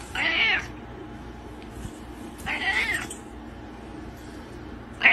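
Cat meowing: two drawn-out meows about two seconds apart, each lasting about half a second, with a third starting right at the end.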